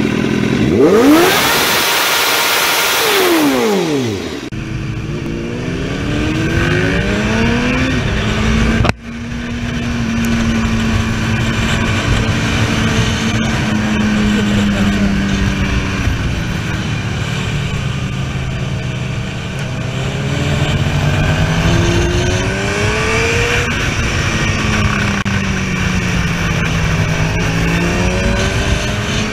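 Sport motorcycle engine revved hard in neutral, its pitch shooting up and falling back in about three seconds. Then the bike is ridden along twisting road, the engine note climbing and dropping with throttle and gear changes over the rush of wind noise.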